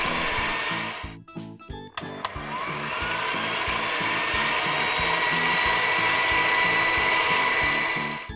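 Steady motor-like whirring sound effect for a cartoon ball-sucking machine. It drops out about a second in and comes back a second later with a short rising sweep, running until just before the end, over background music with a repeating bass pattern.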